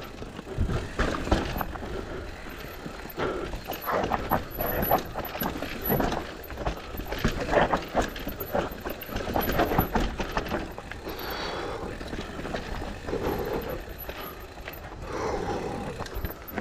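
Mountain bike ridden fast down a dirt trail: tyre roar over the dirt with a continuous run of irregular knocks and rattles from the bike over bumps.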